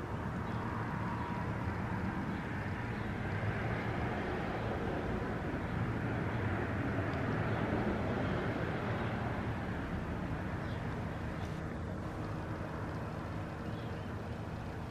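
Outdoor background noise with a steady rumble, typical of a passing vehicle, that swells about midway and then fades.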